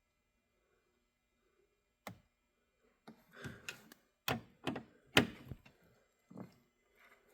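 Small click-type torque wrench being worked on bolts: a single sharp click about two seconds in, then a quick run of sharp metallic clicks and knocks, loudest around the middle, that die away near the end.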